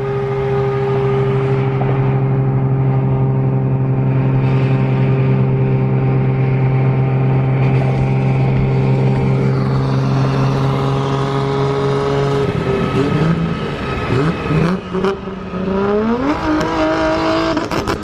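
Toyota Supra engine held at steady revs for about twelve seconds, then the revs drop and rise unevenly, with a quick rise in revs near the end.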